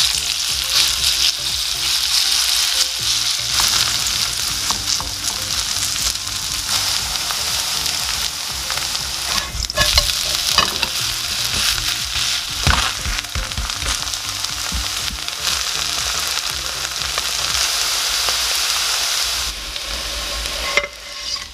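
Shredded zucchini-and-potato pancake sizzling steadily as it fries in plenty of cooking oil in a nonstick pan, with a few sharp knocks along the way.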